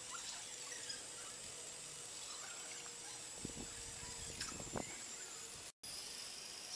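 Small electric motors of a LEGO Technic remote-controlled bridge-building machine whining high and steady, with a few light clicks, as the machine runs. Near the end the sound drops out for a moment and the whine comes back at a different pitch.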